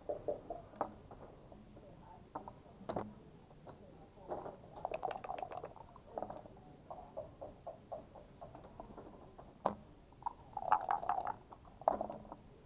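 Backgammon play: checkers clicked down on a wooden board, with two bursts of dice rattling and rolling, one a few seconds in and one near the end, and sharp clacks of a game clock's buttons being pressed.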